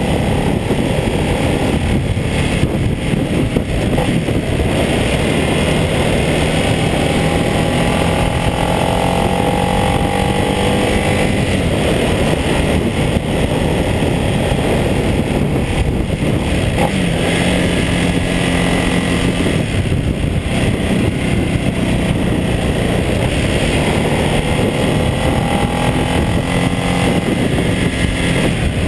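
Ducati Multistrada 1200S's L-twin engine running under way, mixed with heavy wind rush over the bike-mounted camera. The engine note climbs a few times as the throttle opens through the bends.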